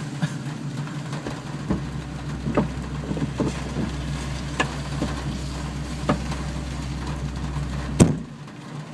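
2000 Ford Mustang's engine idling steadily with scattered light taps. A deeper rumble joins in about two seconds in, and a single sharp bang near the end cuts it off, leaving it quieter.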